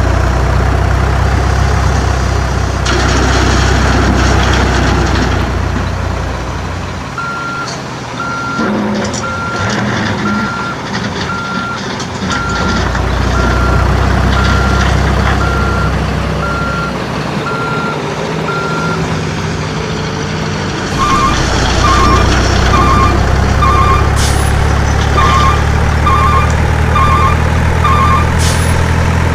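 Heavy-vehicle engine rumble with a reversing alarm beeping at an even pace, about one beep every half second or so. The engine drops away and comes back twice, and from about two-thirds of the way in a second, lower double-beep alarm takes over.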